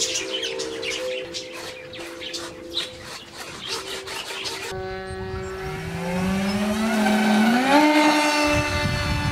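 Background music with steady held notes, then, about halfway in, the electric motors and propellers of a twin-motor foam RC airplane whining and rising in pitch in steps as they throttle up. Near the end a low rushing noise sets in.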